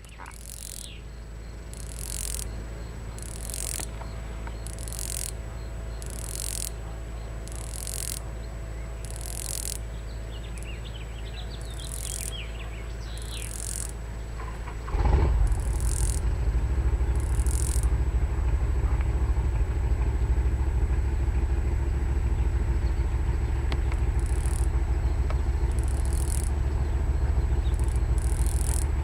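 Cicada calling in short, high, rasping ratchet-like bursts, about one a second, with a pause in the middle. About halfway through, a loud low rumble sets in beneath it.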